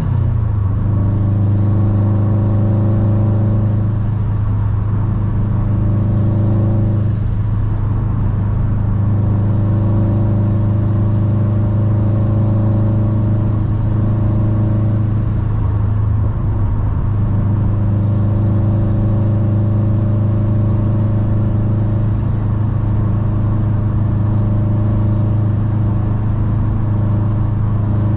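Subaru WRX STI's turbocharged boxer four with an aftermarket Invidia exhaust, heard from inside the cabin: a steady low drone at autobahn cruising speed with tyre and wind noise. Its pitch drops just after the start as the driver shifts up a gear, then holds steady.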